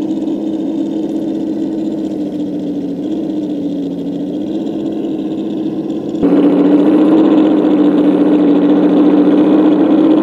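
Simulated V8 engine sound from an RC crawler's ESS-One sound module, a steady low rumble that wavers slightly in pitch with the throttle. It gets suddenly louder about six seconds in.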